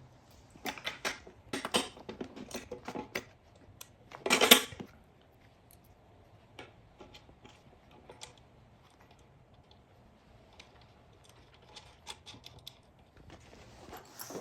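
Metal parts clinking and rattling as a creeper is put together by hand with bolts, washers and nuts: quick clusters of clicks in the first few seconds, the loudest clatter about four seconds in, then occasional light ticks.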